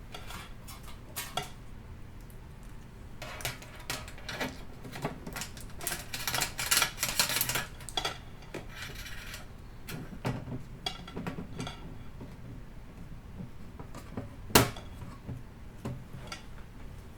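Hard parts of a glass aquarium and its lid being handled: scattered clicks, taps and rubbing, a stretch of busier scraping and clattering about halfway through, and one sharp knock about two-thirds of the way in.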